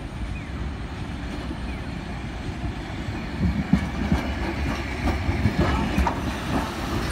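A 7000-series streetcar passing close by: a low rumble that grows, then wheels clacking over the rail joints several times from about halfway through.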